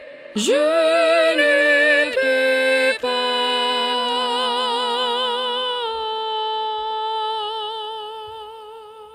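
Music: a singing voice holding long notes with vibrato. It slides up into its first note about half a second in, moves through a few held notes, and ends on one long note that fades out.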